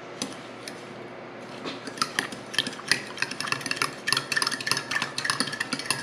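Metal spoon stirring a milk and sugar mixture in a mixing bowl, clinking rapidly against the bowl's sides; the clinks thicken about two seconds in.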